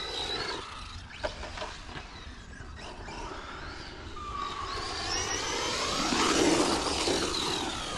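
Electric motor and drivetrain whine of a 1/12-scale four-wheel-drive RC monster truck driving on dirt, rising and falling in pitch with the throttle. It grows louder as the truck comes close, about six seconds in.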